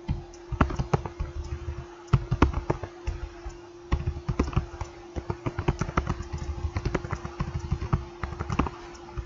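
Typing on a computer keyboard: a run of irregular key clicks and thumps, with a steady hum underneath.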